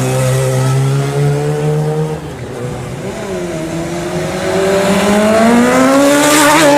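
Four-cylinder sport motorcycle engine at high revs, dropping off about two seconds in, then revving up steadily, rising in pitch, to its loudest near the end.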